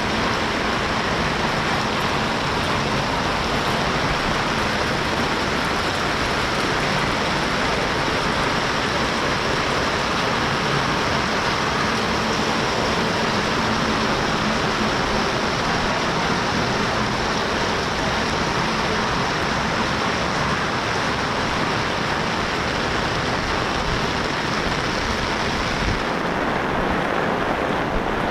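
Steady, heavy rain falling, a loud even hiss; near the end the hiss turns duller.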